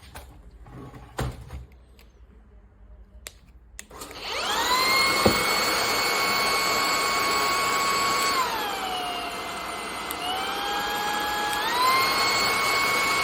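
A knock and a few light clicks, then a cordless stick vacuum cleaner switches on about four seconds in. Its motor spins up to a steady high whine, dips to a lower pitch for about three seconds, then climbs back up.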